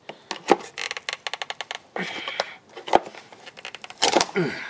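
Sealed lead-acid scooter battery being pried out of its plastic tray against strong double-sided tape: a couple of sharp knocks and a quick run of rapid clicking as the tape lets go, then scraping and handling.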